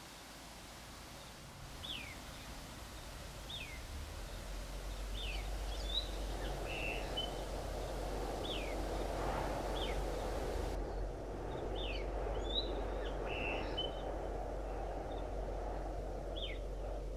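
Birds chirping with short, quickly falling calls about once a second, over the steady rush of a stream that grows louder about four seconds in, with a low steady hum beneath.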